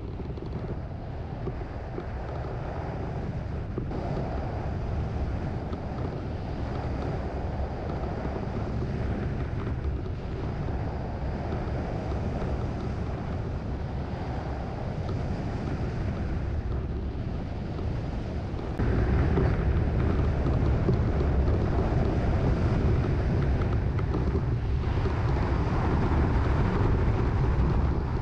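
Wind rushing over a hang glider's wing-mounted action camera in flight, a steady low buffeting on the microphone that turns suddenly louder about two-thirds of the way through.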